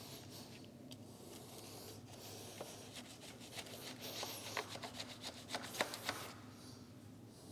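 Motorcycle drive chain being scrubbed clean by hand. It makes a rubbing, scraping sound, busier near the middle with a quick run of light clicks and scrapes.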